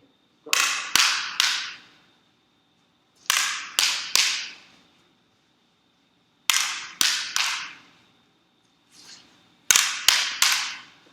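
Eskrima sticks striking training targets in four quick sets of three sharp cracks, about three seconds apart, each crack ringing briefly.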